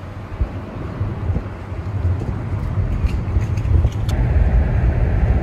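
Wind rushing past an open car window while the car drives along, with road noise and a heavy low rumble of wind buffeting the microphone. It grows a little louder partway through.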